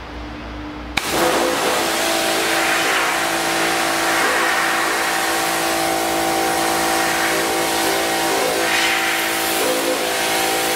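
Pressure washer running: about a second in the trigger is pulled and a loud, steady hiss of high-pressure water spray starts suddenly over the machine's steady pump hum, holding level.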